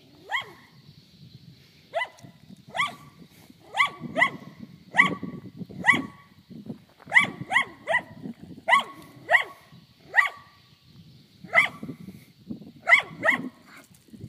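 A small dog barking repeatedly: about sixteen sharp, high-pitched barks, each rising in pitch, coming irregularly every half second to second and a half.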